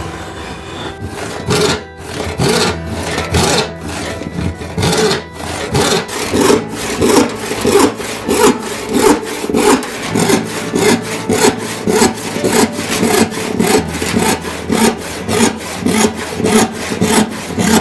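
A saw cutting wood in a steady rhythm, about two strokes a second, over background music.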